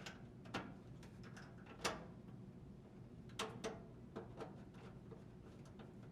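Small plastic clicks and taps from the moisture sensor wire harness connectors being plugged onto the dryer's moisture sensors and handled, irregular and spaced out, the loudest just under two seconds in, over a faint low hum.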